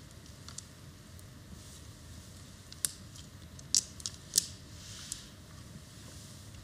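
Mahjong tiles clicking against each other and the table as players draw and discard: one sharp click about three seconds in, a quick run of three clicks a second later, and a lighter one after.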